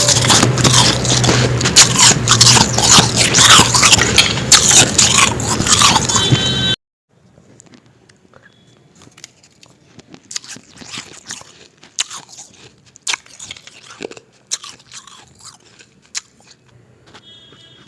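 Close-miked crunching and chewing of powdery frost ice, loud and dense at first; about seven seconds in it cuts abruptly to much quieter, scattered crunches and bites.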